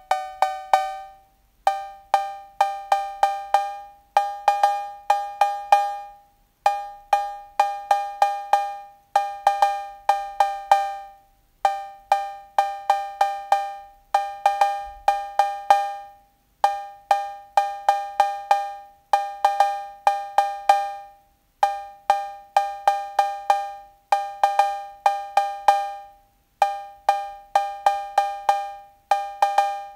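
Roland TR-808 analog cowbell playing a repeating rhythmic pattern of short, quickly decaying strikes, phrased about every two seconds, each strike sounding two clashing pitches from its pair of square-wave oscillators. The upper oscillator is being trimmed during the pattern, its pitch creeping up slightly into tune at 800 Hz against the lower one near 540 Hz.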